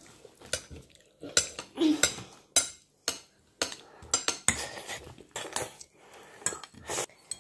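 Metal spoon and fork clinking and scraping against a plate as food is scooped up, in a string of irregular sharp clicks.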